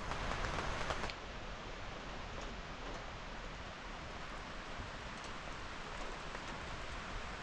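Steady rain falling, an even hiss with scattered drips, a little quieter from about a second in.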